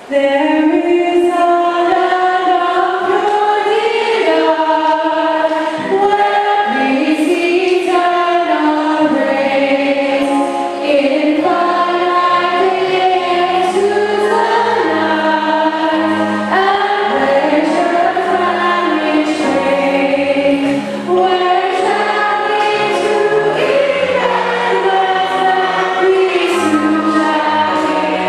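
A group of voices singing a gospel hymn together, the crusade's theme song. A low bass line comes in about nine seconds in.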